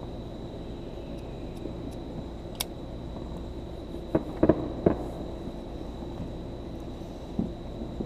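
Distant firecrackers going off: about half a dozen sharp pops at scattered intervals, most of them bunched together near the middle.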